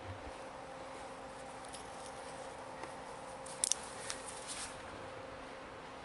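Action camera being handled and turned: two sharp clicks about three and a half seconds in, then a few lighter clicks and rustles, over a faint steady hum.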